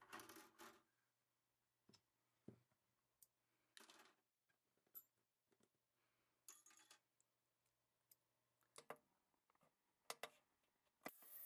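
Faint, scattered clicks and handling sounds as small rifle parts are set into a wire basket of soapy water. Near the end an ultrasonic cleaner starts up with a steady buzz.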